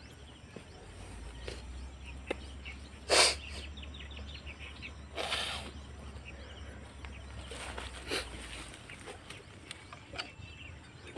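PCP air rifle firing: one sharp, loud shot about three seconds in, then two softer, longer bursts of air, one near the middle and a weaker one about eight seconds in. The rifle is leaking air, which the hunter calls a strong leak.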